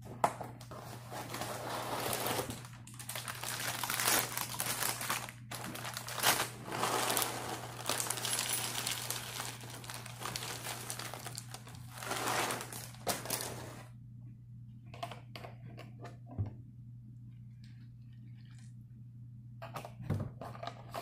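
Plastic cereal-bag liner crinkling and rustling as the cereal box is opened and the bag pulled out and opened, with cereal pouring into a bowl. The crinkling stops about two-thirds of the way through, leaving only a few light knocks and clicks.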